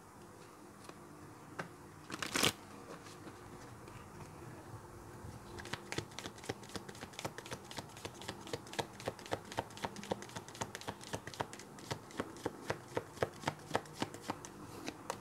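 A deck of oracle cards being shuffled by hand: a single sharp card tap about two seconds in, then from about five seconds in a steady run of soft card snaps, about three or four a second.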